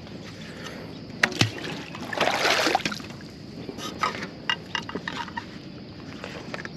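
Handling sounds of a freshly caught bass being measured on a kayak: a few sharp knocks and clicks, with a short splashy rush of water a little over two seconds in.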